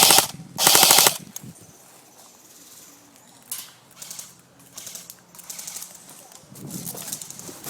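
Airsoft rifle firing two short full-auto bursts of rapid clicking shots, one right after the other in the first second. Fainter scattered clicks and rustles follow.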